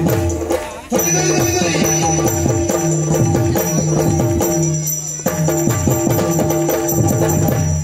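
Yakshagana accompaniment music for a puppet dance: jingling bells and repeated drum strokes that drop in pitch, over a steady held drone. The music dips briefly just under a second in and again about five seconds in.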